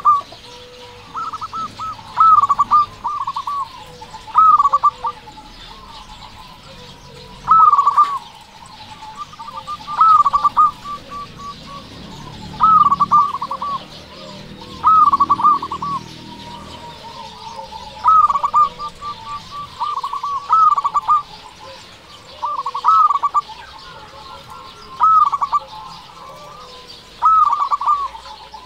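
Zebra dove (perkutut) singing: repeated cooing phrases, each a loud first note followed by a quick run of fading notes, one every second or two.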